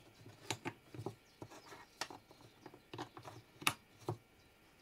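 Irregular small clicks and taps from hands handling a bare amplifier circuit board and its plugs, the loudest about three and a half seconds in.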